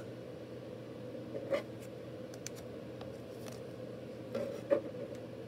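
Hands handling a rigid plastic trading-card holder: soft scrapes and a few light clicks, the loudest a little before the end, over a faint steady hum.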